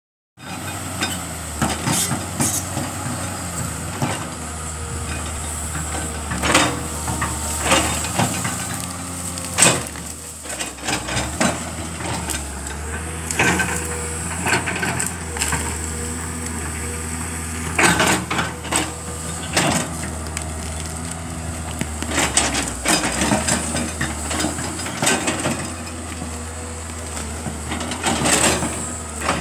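Komatsu hydraulic excavator's diesel engine running steadily as its bucket pushes over a tree, with repeated cracks, snaps and crunches of wood and branches breaking.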